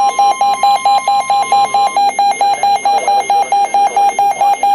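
Weather radio warning alert: a steady NOAA Weather Radio 1050 Hz warning alarm tone, which stops about two seconds in, over a loud, rapid electronic beeping of about six or seven beeps a second, signalling that a warning message is about to be broadcast.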